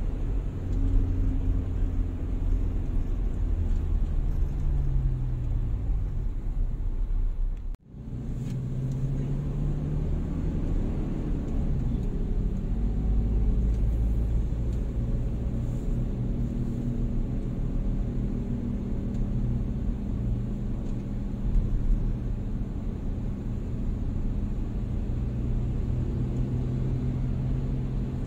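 Car engine and road rumble heard from inside the cabin while driving in traffic. The engine note slowly rises and falls with speed. The sound cuts out for a moment about eight seconds in.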